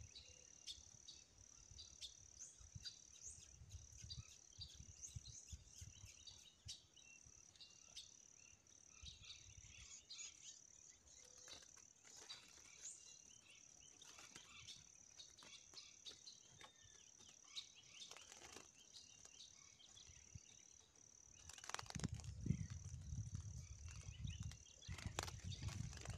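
Faint outdoor ambience: a steady high-pitched insect drone with scattered short bird chirps. A low rumble comes in about three quarters of the way through.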